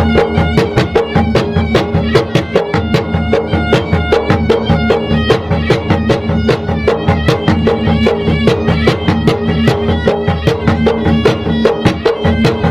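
Gendang adat Maros, traditional South Sulawesi ceremonial drums, beaten in a fast, even rhythm of several strokes a second, with a reed wind instrument holding long notes over the drumming.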